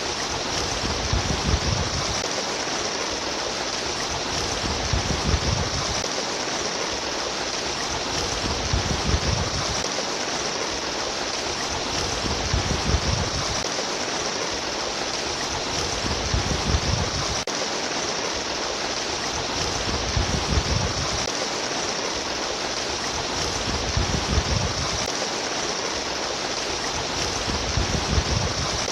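Water babbling and rushing steadily, as in a flowing stream, with a low rumbling swell about every four seconds.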